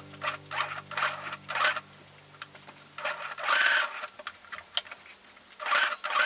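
Sewing machine stitching in short, slow runs, then fabric rustling and sliding twice as it is shifted and turned under the presser foot.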